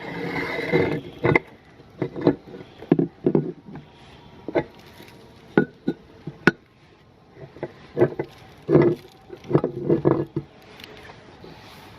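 Meat grinder working on pasta: a short grinding run at the start, then a string of irregular cracks and knocks that ends about ten and a half seconds in.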